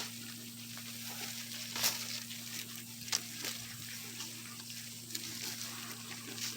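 Goats browsing on a tree: a steady crackling rustle of leaves being pulled and chewed, with two sharp snaps of twigs, the louder about two seconds in and another about a second later.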